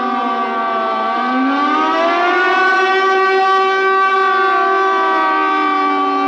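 Warning siren wailing, several tones sounding together. They slide down, rise again about a second in, then hold steady.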